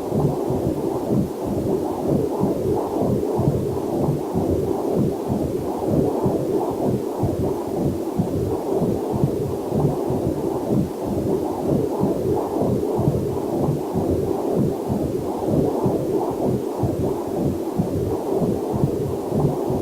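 Heartbeat picked up by a fetal Doppler monitor: a fast, even, whooshing pulse that goes on without a break. A faint waterfall sound lies underneath.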